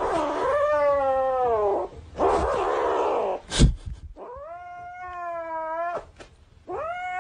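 A cat giving long, drawn-out yowls, three in a row, each about two seconds long. Between the first two there is a rough breathy noise and a single sharp knock.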